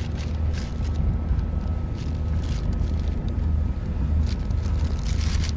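Wind buffeting the microphone as an uneven low rumble, with the crinkle of a plastic bag as a gloved hand shifts the fish inside it.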